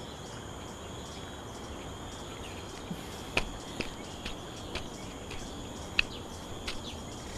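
Insects chirring steadily in a high-pitched chorus, with a scattering of short sharp clicks from about three seconds in.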